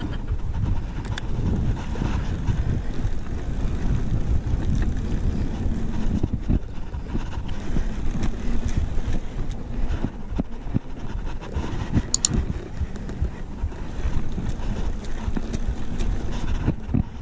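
Knobby mountain-bike tyres rolling over a concrete skate-park bowl: a steady, uneven rumble with wind buffeting the microphone, scattered clicks and rattles from the bike, and a short high squeak about two-thirds of the way through.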